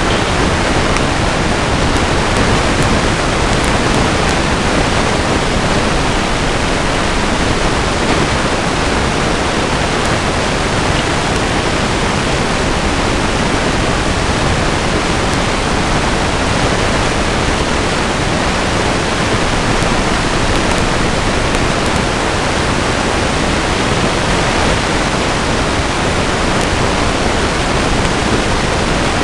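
Loud, steady, unchanging hiss from the recording device's own electronics. No sound of the wolf or of the woods stands out above it.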